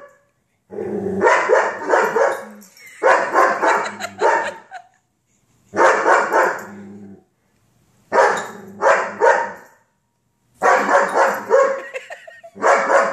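German Shepherd barking at the television in about six short bouts, each a second or two long with several barks run together.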